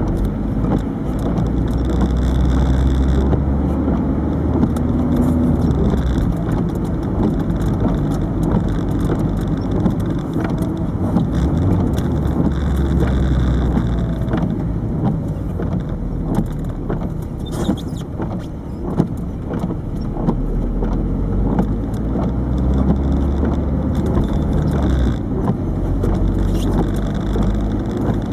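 Inside a 1998 Peugeot 306 turbo diesel on the move: the engine and road noise run steadily, the low engine drone swelling and easing several times, with frequent small clicks and rattles from a camera knocking against the dashboard.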